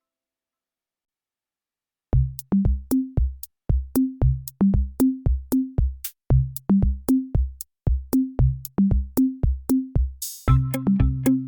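Background music: silence for about two seconds, then an electronic drum-machine beat of kick drum and bass notes starts. Near the end a cymbal-like crash comes in and a fuller synthesizer part joins.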